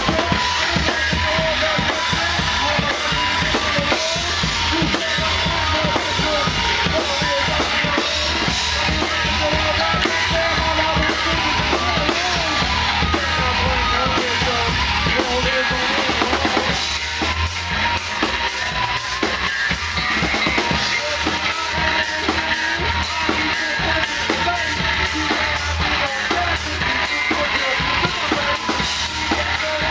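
Live rock band playing loud, fast music, driven by a drum kit with bass drum and snare hits.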